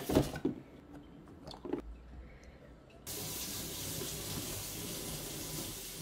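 A few light clicks, then about three seconds in a steady hiss of running water starts abruptly.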